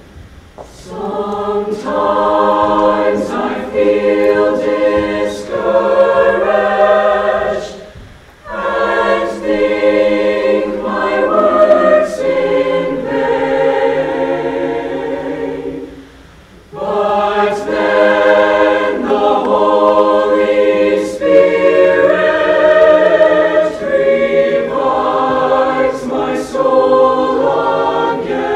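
A mixed high school choir singing in long sustained phrases, with two short breaks between phrases about eight and sixteen seconds in.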